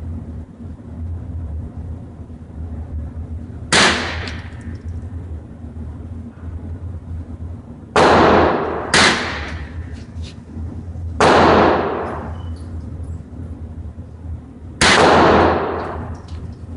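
Five rifle shots fired at uneven intervals, about four, eight, nine, eleven and fifteen seconds in, each followed by a ringing echo that dies away over about a second. A steady low hum runs underneath.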